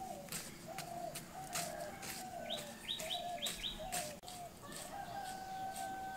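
Chickens clucking and calling in a string of short wavering calls, with one longer held call near the end. Small birds chirp briefly in the middle, and sharp clicks and taps sound throughout.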